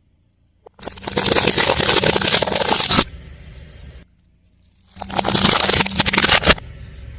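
Things crunching and crackling as a car tyre rolls over them, in two loud stretches of about two seconds each, with the car's engine humming low between and after them.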